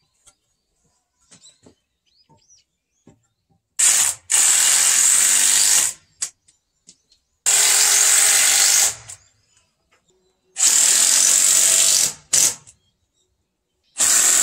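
Cordless drill driving screws into a wooden workbench frame in three runs of about one and a half to two seconds each, with a fourth starting near the end. Faint knocks of boards being handled come before the first run.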